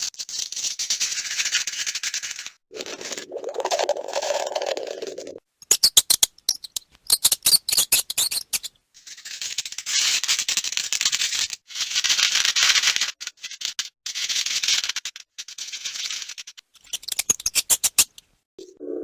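Mice scratching and rustling: runs of dense, dry crackling and clicking broken by short pauses. About three seconds in there is a duller, lower rustle, and fast trains of separate clicks come about six to nine seconds in and again near the end.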